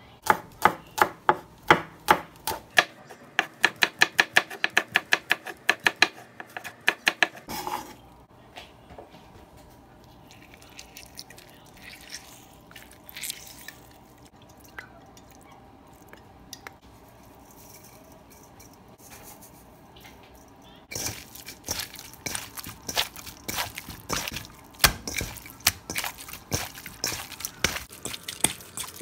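Minced shrimp filling worked by hand in a stainless steel bowl. A fast, even run of sharp knocks about five a second opens it and stops after about seven seconds. After a quieter stretch in which lime juice is squeezed over the filling, irregular wet slaps and clicks of kneading in the bowl begin about three quarters of the way through.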